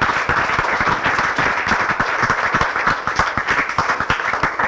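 A group of people clapping steadily, a dense patter of many hands that thins out to a few last claps right at the end.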